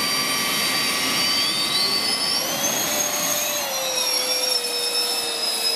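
Electric ducted fans of an RC VTOL jet model spooling up as it lifts into a hover: a multi-tone whine that rises in pitch over a second or two, then settles and holds steady.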